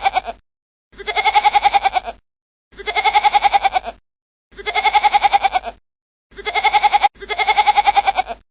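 Goat bleating: the tail of one call, then about five more bleats in a row. Each is about a second long with a fast wavering quaver, and they are separated by short gaps of dead silence. The calls are identical, one recorded bleat repeated.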